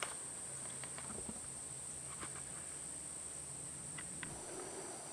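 Steady high-pitched insect chorus, crickets or similar, with a few faint ticks.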